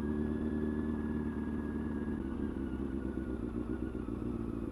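Honda CBR600F4i's inline-four engine running at steady revs while riding.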